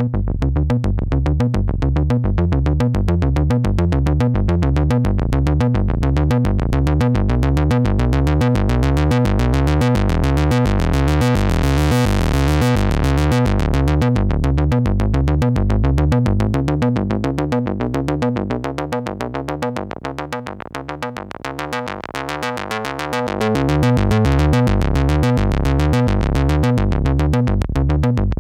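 Eurorack modular synthesizer playing a fast, repeating sequenced bass line through a Steve's MS-22, an MS-20-style filter. The filter cutoff sweeps open, brightest about twelve seconds in, then closes again. The notes thin out and drop in level for a few seconds past the middle before the full pattern returns.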